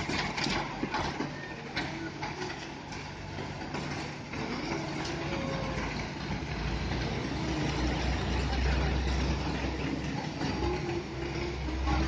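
Hino Ranger concrete mixer truck's diesel engine running steadily while its drum discharges concrete down the chute. A deeper, heavier low rumble builds from about six and a half seconds in and eases off near the end.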